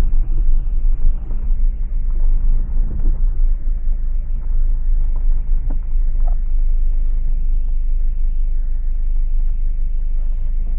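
Vehicle driving slowly on a rough back road, heard from inside the cabin: a steady low rumble of engine and tyres, with a few faint knocks partway through.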